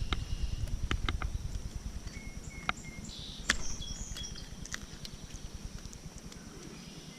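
Outdoor pond ambience: wind rumbling on the microphone, easing off over the seconds, under a steady high insect buzz. A few short bird chirps and scattered light clicks and knocks come through as well.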